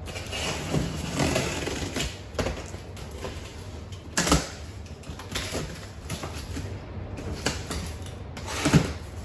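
A blade slicing along the packing tape on top of a large cardboard box, with a scratchy scraping and many small clicks. There is a louder knock against the cardboard a little past four seconds in and another near the end.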